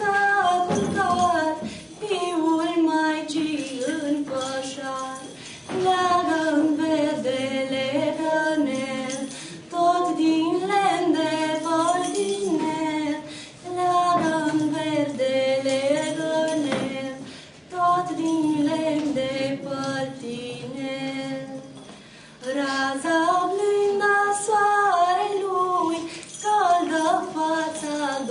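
A woman singing unaccompanied, a slow melody in phrases of about four seconds with short breaths between them.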